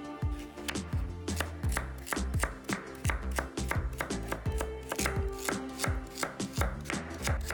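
Knife chopping on a cutting board in quick, irregular strokes, about three a second, over background music.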